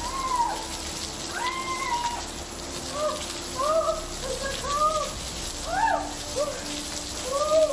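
Steady rain falling, over which an animal gives a run of short rising-and-falling calls, roughly one or two a second, some overlapping at different pitches.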